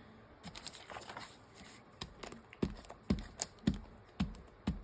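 Light taps and clicks of hands handling craft materials on a tabletop, sparse at first, then a quicker run of sharper knocks about two a second from about two seconds in.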